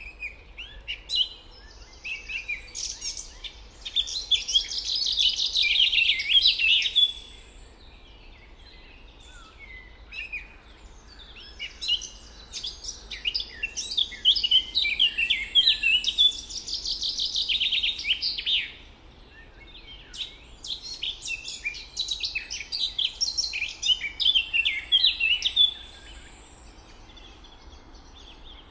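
Songbird singing long phrases of rapid, quick notes, three phrases in all with pauses of a few seconds between them, over faint steady background noise.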